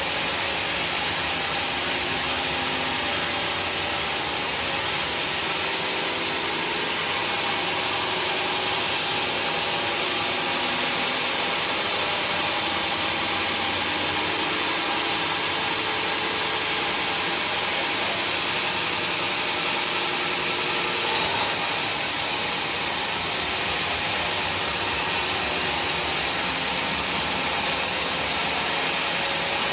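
A woodworking power machine running steadily, a continuous hissing machine noise, with a brief rise about two-thirds of the way through.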